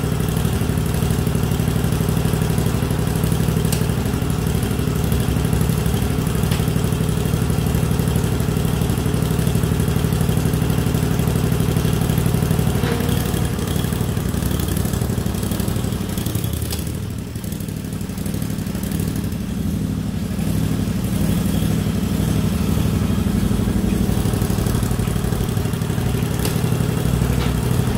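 Straight-piped Briggs & Stratton Vanguard V-twin engine in a garden tractor running steadily at idle, with a brief dip in level a little past halfway.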